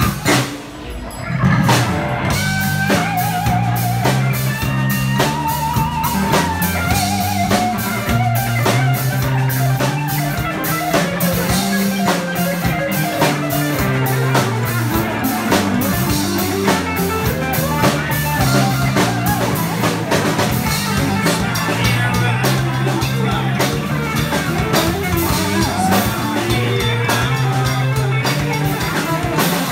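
Live band playing amplified music with electric guitars and a steady drum beat. The music dips briefly about a second in, then carries on.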